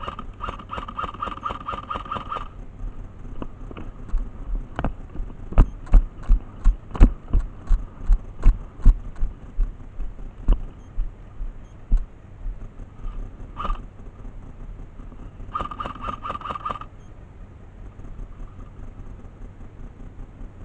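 Airsoft electric rifle firing on full auto: a rapid mechanical rattle with a motor whine, in a burst of about two and a half seconds at the start, a very short one later, and a one-second burst near the end. In between comes a run of heavy thumps, roughly two a second.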